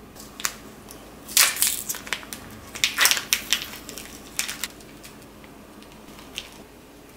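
Thin plastic wrapper of a small mozzarella ball crinkling and crackling as fingers struggle to tear it open, in uneven bursts for about four and a half seconds. After that only a faint click.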